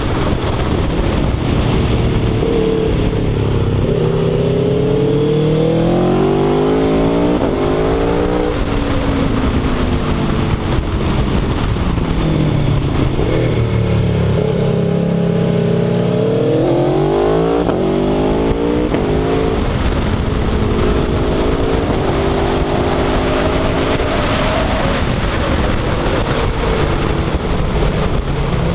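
Aprilia Tuono V4 1100 RR's V4 engine, heard from on the bike with wind rush, accelerating hard through the gears. The pitch climbs and steps down at each upshift a few seconds in and again around the middle, falls off between, then runs steadier near the end.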